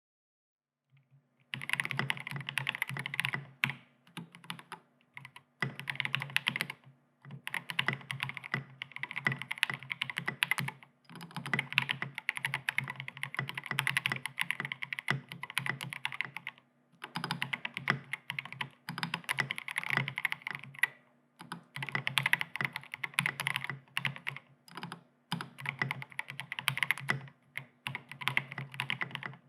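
Continuous typing on a Matrix Noah 65 custom mechanical keyboard with EV-02 linear switches (lubed with 3204, with TX films), a UHMPE plate and SA-profile keycaps. It is a fast stream of key clacks in runs with brief pauses, starting about a second and a half in.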